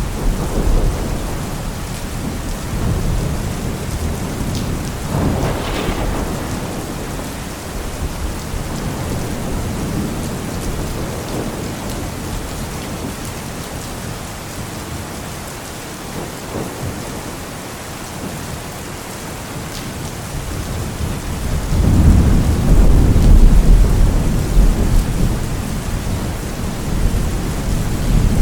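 Steady heavy rain with rolling thunder rumbling underneath; a short roll swells about a fifth of the way in, and a louder, longer roll builds near the end.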